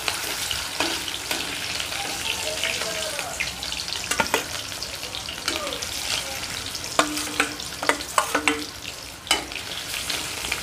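Rohu fish steaks frying in hot mustard oil in an aluminium kadai, with a steady sizzle. A metal spatula clinks against the pan a few times, mostly in the second half, some clinks ringing briefly.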